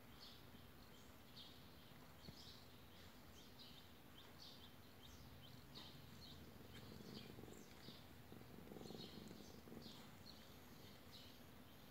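Near silence: quiet room tone with faint, short, high chirps repeating about twice a second.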